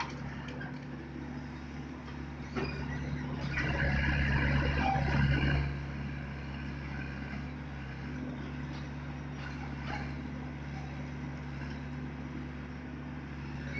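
Diesel engine of a Komatsu 75UU excavator running steadily while it loads a dump truck. A few seconds in it grows louder and harsher for about three seconds, as the machine works under load.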